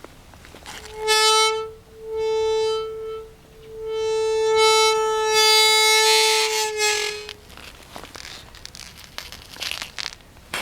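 Merida bicycle giving a high-pitched squeal of unknown origin, three times: a short one, a longer one, then a long one that dips in pitch as it ends, followed by faint clicks and rattles.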